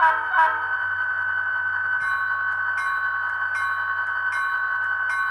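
Sound decoder of an HO-scale EMD SD40-2 model diesel locomotive playing through its onboard speaker: two short horn blasts at the start, the signal for moving forward. From about two seconds in, the bell rings steadily, a strike about every three-quarters of a second. Under both runs the steady sound of the diesel engine.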